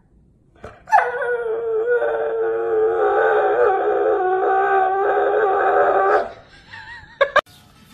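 Dog howling: one long, steady howl lasting about five seconds, followed by two short sharp sounds about a second later.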